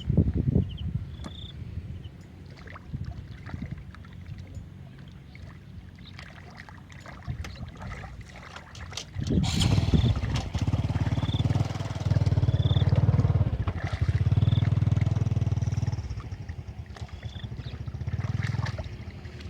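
A small engine running with a low, steady hum that swells louder in long stretches through the second half, with scattered clicks and short high chirps over it.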